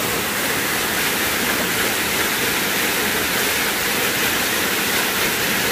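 Small waterfall pouring into a rocky pool, a steady rush of falling water.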